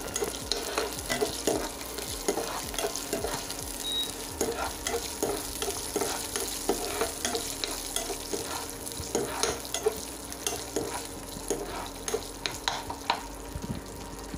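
Cashew nuts frying in ghee in a nonstick pan, a steady sizzle, while a metal spoon stirs them with many light scrapes and clicks against the pan.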